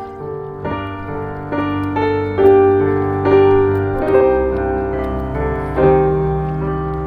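Background music: a piano playing a slow melody over sustained bass notes.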